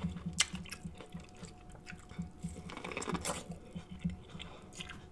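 Close-up mouth sounds of chewing a bite of sauce-coated corn on the cob: irregular wet smacks and clicks of lips and food, with a few sharper smacks about half a second in and around three seconds.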